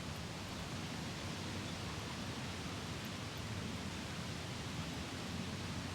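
Steady wind: an even hiss with a low rumble underneath.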